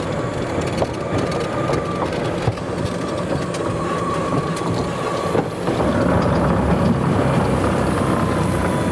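Golf cart driving: a steady rumble of wheels with a thin whine that holds one pitch, breaking off briefly about five seconds in.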